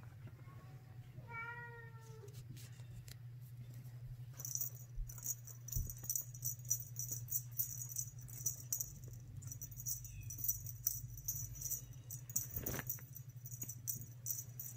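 A cat meows once near the start, one bending cry. From about four seconds in, the small bell on a feather wand toy jingles rapidly and unevenly as it is shaken and batted by kittens.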